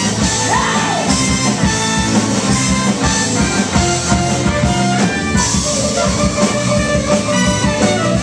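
Live rock band playing loud and steady, with electric guitar, bass and a regular drum beat.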